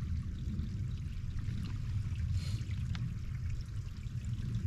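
Spring water running steadily out of a metal pipe and splashing onto the rocks below.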